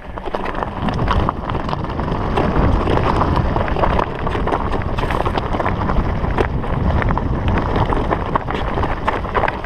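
Mountain bike rolling downhill over a loose rocky trail: a heavy wind rumble on the microphone, mixed with tyres crunching on stones and scattered clicks and rattles from gravel and the bike. It grows louder at the start as the bike picks up speed.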